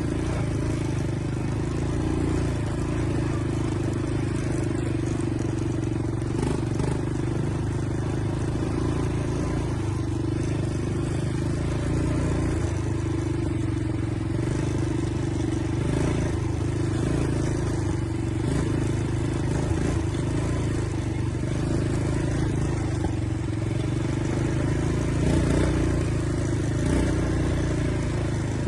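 ATV engine running at a steady pace while riding.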